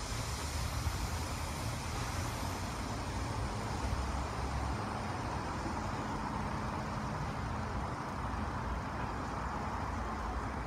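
Stopped BNSF grain train of covered hoppers giving a steady low rumble, with a high air hiss from its brakes that fades out in the first few seconds.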